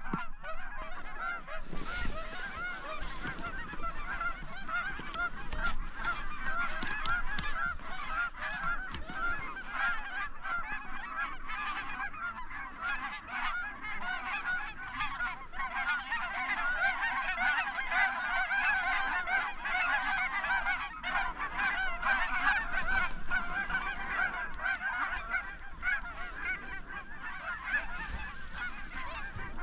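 A large flock of geese honking continuously, with many calls overlapping, thickest about halfway through.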